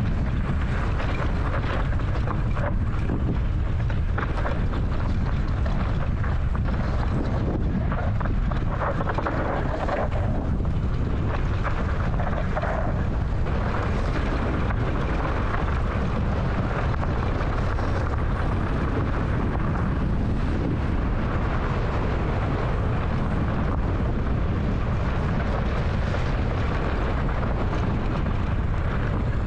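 Enduro motorcycle riding along a trail: the engine running steadily under heavy wind noise on the microphone.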